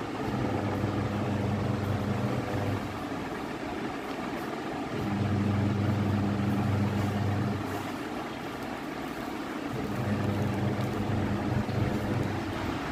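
A low, steady machine hum that starts and stops three times, about every five seconds, over constant background noise.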